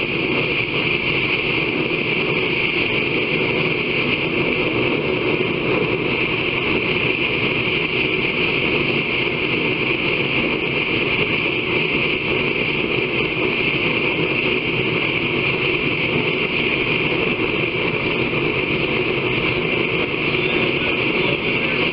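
Steady, unbroken rushing noise from forge-shop equipment, even in level with a strong hiss in its upper range.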